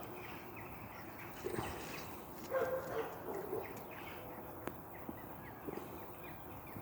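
A dog making soft, short noises while playing on his own, with a sharp click a little past the middle. Faint bird chirps sound behind.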